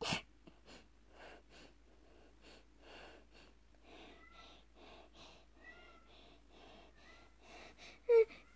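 Faint, rhythmic rustling of fabric, about two or three soft strokes a second, as a plush toy is rubbed and pressed against a pillow. A short sharp noise comes at the very start and a brief voice near the end.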